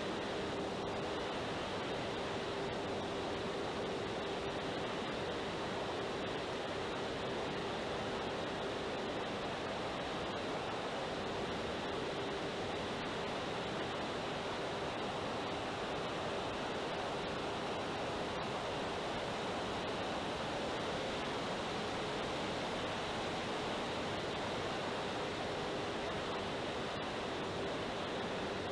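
Steady rush of air over the onboard camera of an electric FlightLine Spitfire 1600 RC plane in flight, with a steady hum from its motor and propeller underneath.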